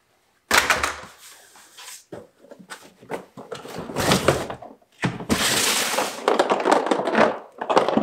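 A Ridgid shop vacuum being hauled out of its cardboard box and set down on a concrete floor: a sudden thunk about half a second in, then cardboard rustling and scraping against the vacuum's body, loudest in a long scrape past the middle.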